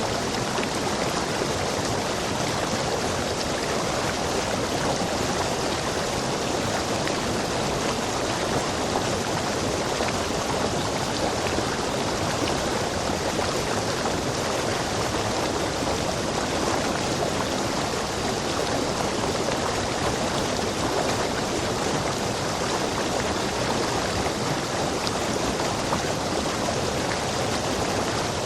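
Rainforest stream rushing over rocks: a steady, unbroken rush of water.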